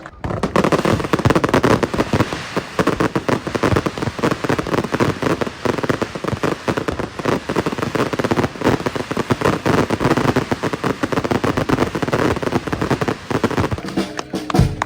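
Firework display: a loud, dense crackle of many rapid small bangs running on without a break.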